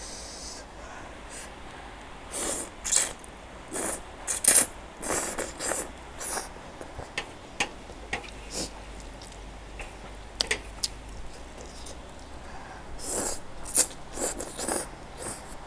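Close-miked eating sounds from spicy Korean instant noodles: several bursts of slurping as noodles are sucked in, with wet chewing and light clicks in between. The slurps bunch up in the first half and again near the end.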